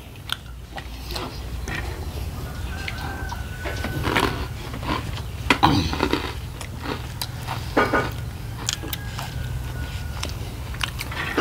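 Eating sounds of a rice-and-dal meal: scattered chewing, mouth and lip noises and light clicks of dishes, over a steady low hum.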